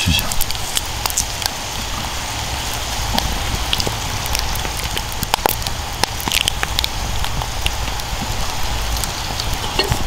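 Wood fire crackling: scattered sharp pops and snaps over a steady hiss, with a low rumble underneath.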